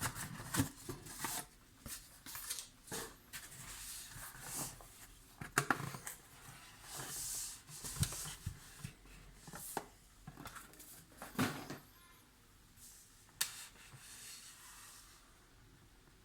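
Hands handling a small alarm clock: irregular light knocks, clicks and rubbing as it is picked up, turned and set down. Two sharper knocks come about five and eleven seconds in, and it goes quieter near the end.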